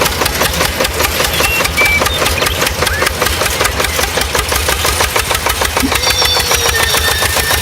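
Engine running steadily with a fast, even knock.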